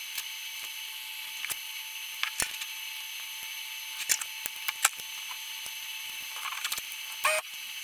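Scattered light clicks and taps of a small power-supply circuit board and loose capacitors being handled and turned over on a work mat, over a steady background hiss.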